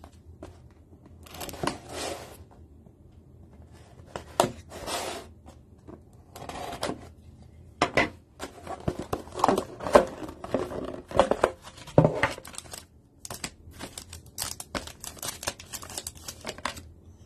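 Plastic shrink wrap being torn and crinkled off a cardboard trading-card box, in irregular bursts that are busiest around the middle. Near the end, foil booster packs rustle as they are lifted out of the opened box.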